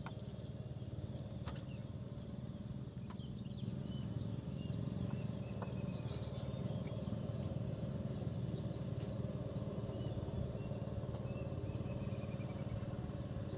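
Steady low outdoor background rumble, with faint high bird chirps and a few light clicks scattered through it.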